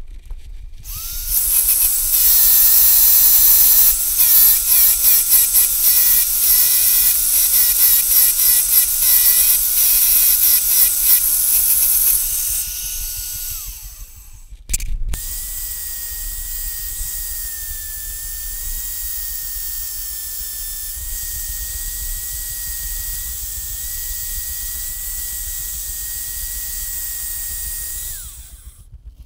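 Corded electric drill used as a makeshift lathe, spinning a wooden screwdriver handle in its chuck: it runs steadily for about thirteen seconds with loud scratching over it for most of that time, then stops. It starts again at a higher pitch and runs more quietly and evenly until it winds down near the end.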